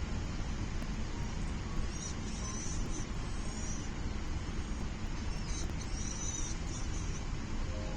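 High, thin bird chirps in two short bursts, about two seconds and five and a half seconds in, over a steady low rumble of background noise.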